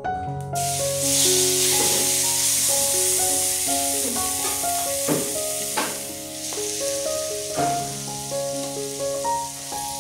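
Pieces of fish go into hot vegetable oil in a non-stick pan and sizzle, the hiss starting suddenly about half a second in and carrying on steadily, with a few knocks in the middle. Soft piano music plays throughout.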